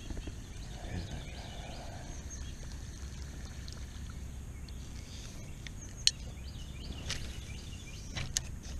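Creek-side outdoor ambience: a steady low rumble with faint bird calls, and a few sharp clicks in the last few seconds.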